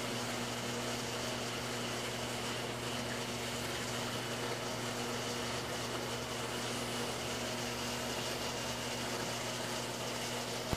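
Steady hum and water hiss of a large saltwater aquarium's pumps and circulation equipment, unchanging throughout.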